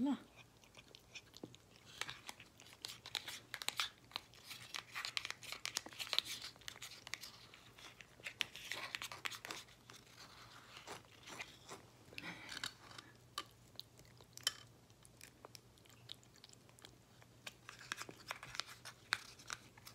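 Siamese cat eating soft wet cat food: quick, small, wet chewing clicks and smacks coming in irregular bursts.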